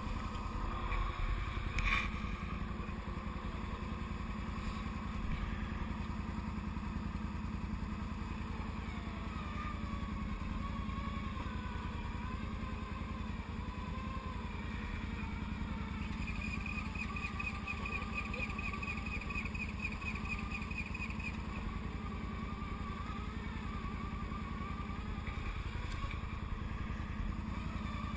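Can-Am Outlander ATV engine running steadily as it winches a swamped side-by-side out of a river. A sharp knock comes about two seconds in, and a rhythmic high whir runs for about five seconds past the middle.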